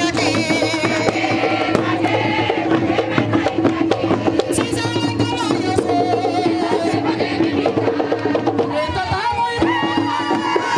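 Traditional Panamanian folk music: quick drumming with singing over steady held tones.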